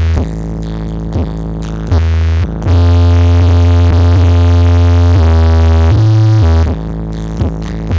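Electronic dance music with synthesizer and drum machine played loud through a large sound system, heavy in bass. About three seconds in, a sustained bass-heavy synth passage swells louder for about four seconds before the beat returns.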